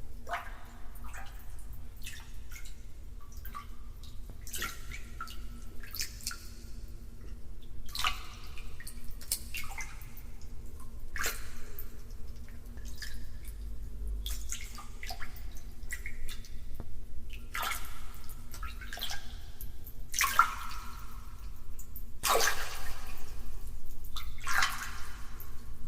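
Public bathhouse ambience: water dripping and splashing at irregular intervals of a second or few, over a steady low hum.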